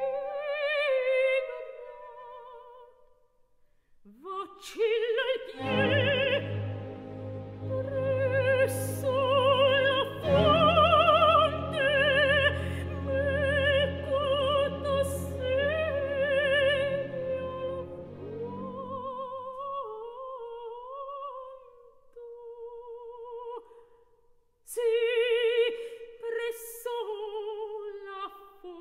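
Operatic soprano singing with a wide vibrato, accompanied by a symphony orchestra playing sustained chords. In the second half the orchestra falls away, leaving the voice nearly alone.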